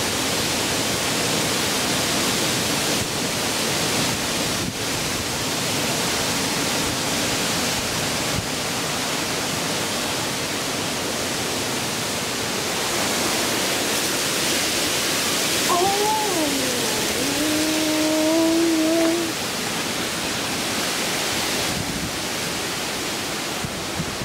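Hurricane wind and rain: a steady, dense rush of noise as the storm lashes the trees. About two-thirds of the way in, a pitched tone dips and then holds for a couple of seconds over the noise.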